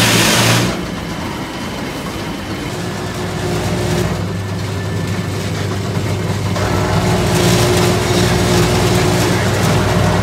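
Motorized sugarcane juice press running with a steady hum, a brief loud rush right at the start as cane goes through the rollers, and the sound growing fuller about six and a half seconds in.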